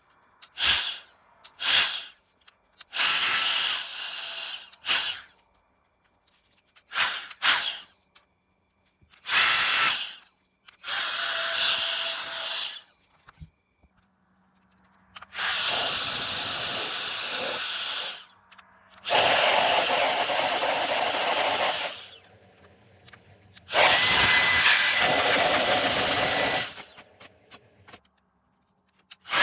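Cordless electric air duster blowing in repeated bursts as its trigger is pulled and let go: a rushing blast with a faint high motor whine. The first bursts are short, and three later ones last about three seconds each.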